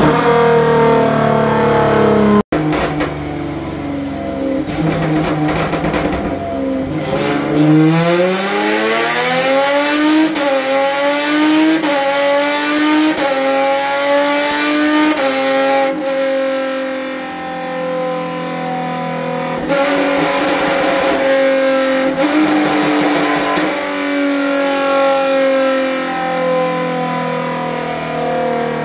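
Hyundai Genesis Coupe 3.8 GT1 race car's V6 revving hard on a chassis dyno. The pitch climbs steadily and is cut by several quick upshifts of the sequential gearbox, each one a sudden drop in pitch. Near the end the revs wind down.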